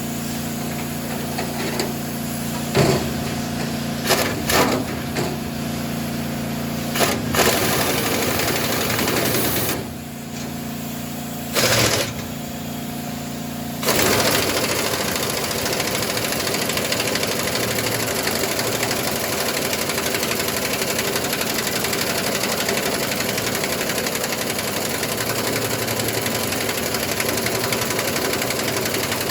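Electric arc welding: a few short welds with a steady hum between them, then a long continuous weld crackling steadily from about halfway through.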